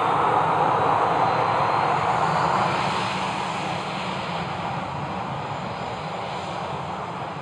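Boeing 737-800's CFM56 jet engines running, a steady roar that fades gradually as the aircraft moves away.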